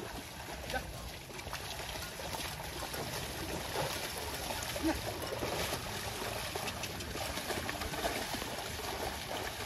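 A pair of yoked oxen wading through flooded rice-paddy mud and dragging a wooden plough, with continuous sloshing and splashing of water and mud and small scattered clicks.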